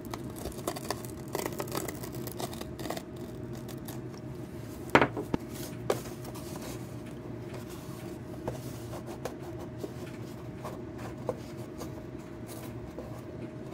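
A knife blade slitting brown paper wrapping and tape, with paper rustling and light scrapes and taps as the cardboard box is handled; one sharper knock about five seconds in. A steady low hum runs underneath.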